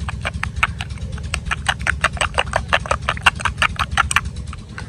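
Metal spoon clicking rapidly against the side of a glass bowl as raw eggs and spices are beaten, about five clicks a second, stopping about four seconds in. A low steady hum runs underneath.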